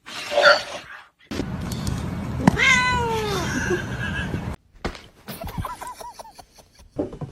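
Cats meowing. About two and a half seconds in comes a long meow that falls in pitch, and after about five seconds a string of short calls follows.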